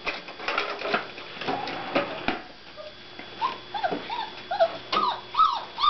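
A four-week-old mastiff puppy whining, a string of short rising-and-falling whimpers at about two a second, starting a little past halfway. Before that there are a few light taps and scuffles.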